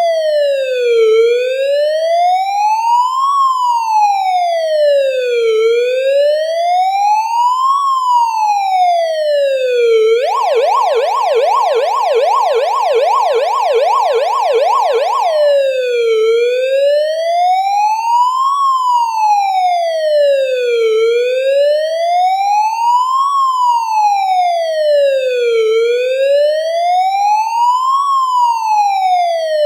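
Electronic police car siren in wail mode. Its pitch slowly rises and falls, each sweep up or down taking a little over two seconds. About ten seconds in, it switches to a rapid yelp of about two sweeps a second for some five seconds, then returns to the slow wail.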